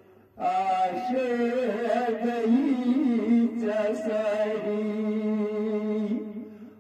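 A man singing a naat, a devotional poem in praise of the Prophet, in long held notes with melodic ornaments. He comes in about half a second in after a short pause for breath, and the line fades away near the end.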